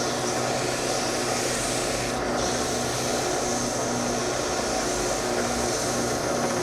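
A small electric motor running steadily, spinning an engine valve while a Scotch-Brite pad scrubs the carbon off it, with a continuous hiss of the abrasive pad on the metal.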